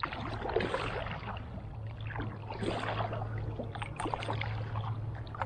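Kayak paddle strokes: the blades dipping into the river, with irregular splashing and dripping water, over a steady low hum.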